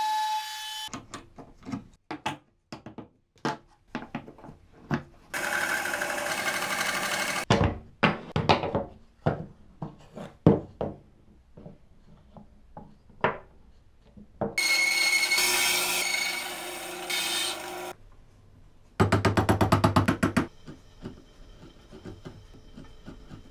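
Woodworking sounds in sequence: a trim router's whine cuts off about a second in, then sharp knocks of wooden pieces handled and set together on a table, broken by two short stretches of power-tool noise and a fast rattle, and near the end a chisel faintly paring wood held in a vise.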